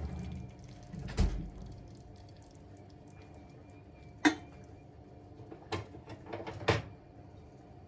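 Four separate sharp knocks or clicks of household handling, the loudest about four seconds in, over quiet room tone.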